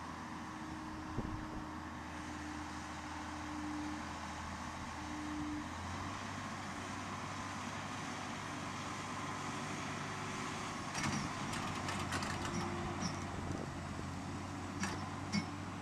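Diesel engine of a four-wheel-drive articulated tractor working under load while trying to pull a loaded grain truck out of mud. The engine speed steps up about six seconds in, and scattered sharp clicks and knocks come through in the second half.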